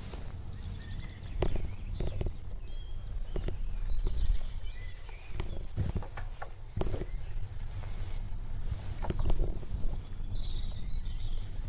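Steady low rumble of wind and a bicycle rolling over a paved path, with scattered knocks and rattles. Small birds chirp briefly now and then, most near the end.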